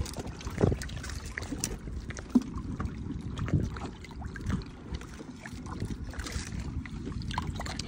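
Shallow bay water sloshing and splashing as a landing net and a soft fish bag are handled at the surface, with wind rumble on the microphone and scattered small clicks and knocks from the gear.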